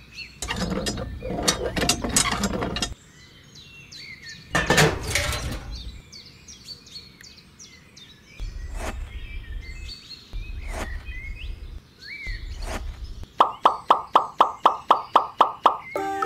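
Small birds chirping, over rustling handling noise and a few sharp clicks as the small plastic parts of a toy hand pump are fitted and set into place. Near the end comes a quick, even run of about a dozen knocks, some four a second.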